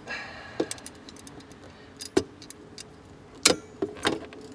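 Locking pliers (vice grips) clamped on a 1996 Ford Mustang's parking brake cable clinking and clanking against the lever mechanism as the cable is tugged: about five sharp metal clanks, the loudest about three and a half seconds in. The cable does not give, which the owner takes for rear cables seized in their housings.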